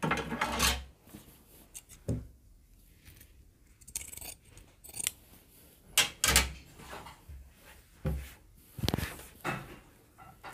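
Tailoring scissors cutting blouse fabric and cloth being handled on a table: a few short, separate snips and rustles with pauses between.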